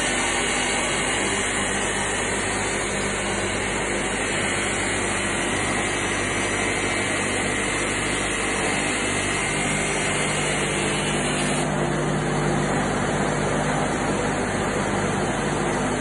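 Pallagrosi sawmill machine running steadily: a continuous mechanical hum and hiss from its motors, chain-driven feed rollers and dust extraction. About twelve seconds in, the higher hiss drops and a lower hum grows stronger.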